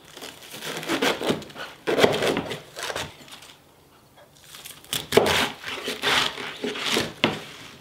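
Knife cutting through a head of napa cabbage on a wooden cutting board: repeated crisp crunching cuts with knocks of the blade on the board. The cutting pauses for about a second midway and then resumes.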